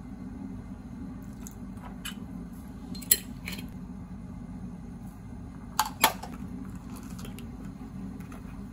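A wooden spoon stirring sauce in a ceramic bowl, knocking and clicking against the bowl a few times, the loudest pair of clicks about six seconds in, over a steady low hum.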